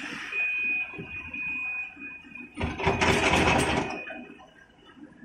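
A bucketload of wet earth and rocks dumped from a Volvo excavator into the steel body of a Volvo 460 tipper truck: a loud rushing crash lasting about a second and a half, a little past halfway. It is preceded by a steady high-pitched tone that stops just before the crash.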